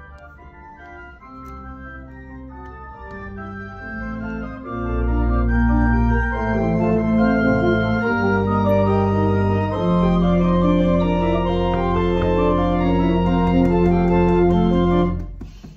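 Pipe organ playing sustained chords. It grows louder and fuller about five seconds in as deep pedal notes come in, holds a full chord, and stops abruptly near the end.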